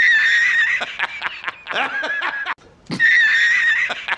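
Meme sound effect of a man laughing hard, the same clip played twice: once at the start and again a little under three seconds in.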